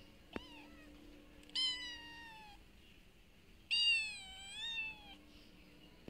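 Cat meowing twice: a short chirp at the start, then a falling meow about one and a half seconds in, and a longer, louder meow near four seconds whose pitch dips and rises again.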